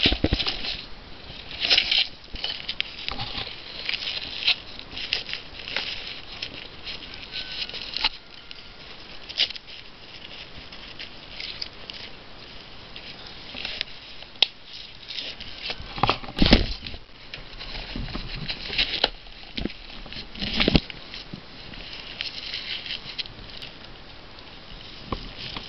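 Boots crunching through snow in uneven steps, roughly one every second or two, over a faint steady patter.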